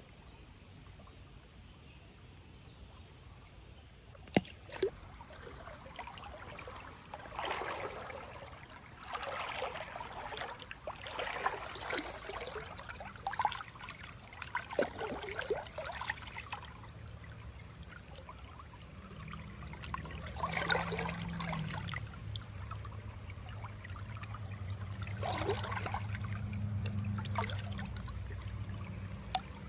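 Shallow river water trickling, with a sharp knock about four seconds in and then a string of splashing swishes in the water, a second or two apart. A low steady hum comes in past the middle.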